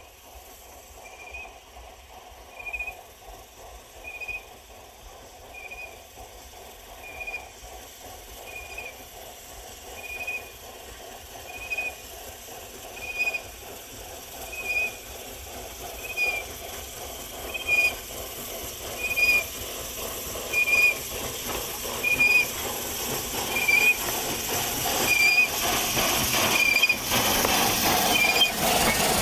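Steam locomotive working slowly closer, growing louder, with a short high-pitched squeak repeating steadily about every second and a half. Steam hiss and train noise swell near the end as it passes.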